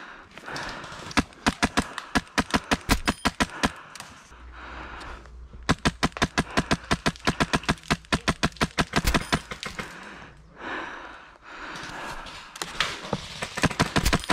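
HPA airsoft rifle, a Wolverine MTW, firing fast strings of sharp shots at about eight a second: one string of roughly two and a half seconds, a second of nearly four seconds, and a few more shots near the end.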